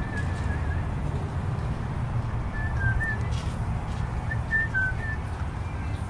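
A person whistling a tune in short, wavering phrases, over a steady low rumble.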